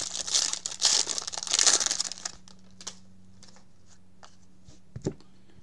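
Clear plastic wrap crinkling and tearing as a baseball card box is unwrapped, for about two seconds. It then stops, leaving a few faint ticks and a short soft thump about five seconds in as the cards are handled.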